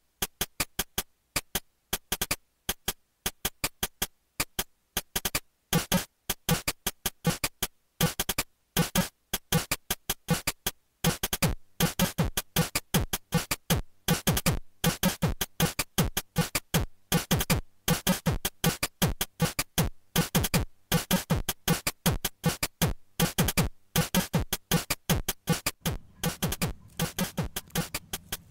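Electronic background music with a fast drum-machine beat.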